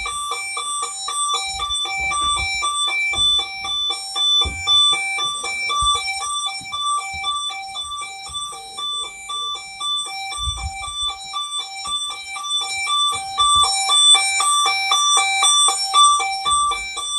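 Burglar alarm's internal sounder beeping continuously, a rapid electronic two-pitch beep at about three beeps a second.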